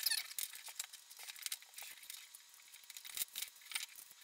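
3D-printed plastic parts and their wiring being handled and pulled apart on a tabletop: scattered light clicks, knocks and rustles, with a short plastic squeak at the start.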